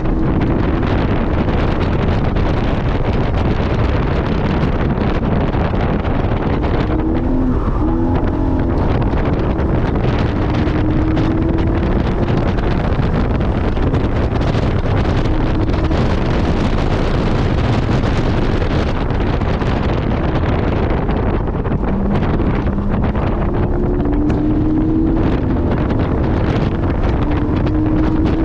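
Porsche 718 GT4's 4.0-litre flat-six engine pulling hard on track, heard from inside the cabin under heavy wind and road noise. Its pitch climbs several times as it revs through the gears, with a quick drop at each shift.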